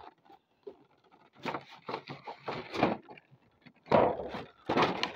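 Cardboard box and plastic packaging of an action figure being handled close to the microphone: rustling and scraping in short noisy bursts, the loudest two near the end.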